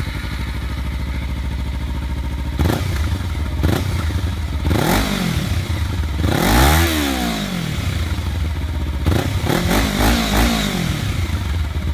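Kawasaki Ninja 300's parallel-twin engine running through an Akrapovic slip-on exhaust with the baffle in, idling and being revved in place: several short throttle blips, one longer rev near the middle and a quick run of blips near the end, each falling back to idle.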